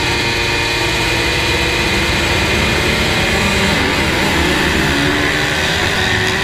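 A field of motocross bikes at full throttle, launching together off the start line, with many engine notes layered at different pitches. The notes dip and climb again about four seconds in.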